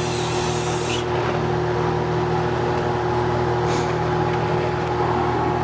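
A short burst of spray hiss, cutting off about a second in, over the steady hum of a running shop motor. A fainter brief hiss comes near the end.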